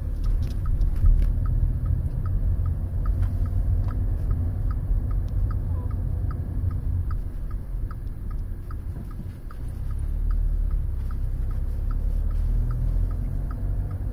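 Small car driving at low speed, heard from inside the cabin: a steady low rumble of engine and tyres on the road. A light, regular ticking runs alongside it, about two to three ticks a second.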